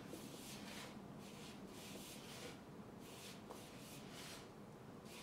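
Faint, soft rhythmic scrunching of a hand rubbing and squeezing crumbly rice-flour dough in a bowl while water is worked in, about two to three strokes a second.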